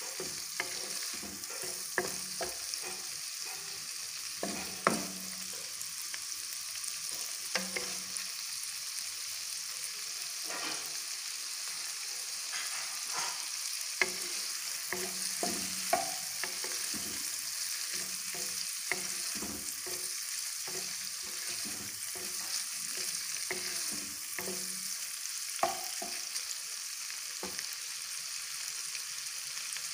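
Diced chicken sizzling in hot ghee and butter in a pan with a steady high hiss, being browned until its colour changes. A spatula stirs and scrapes through the pieces, with a sharp knock against the pan every few seconds.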